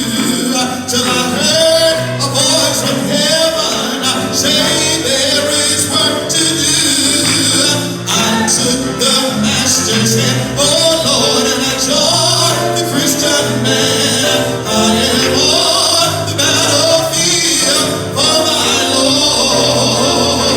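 Gospel music with singing over a band that keeps a steady beat.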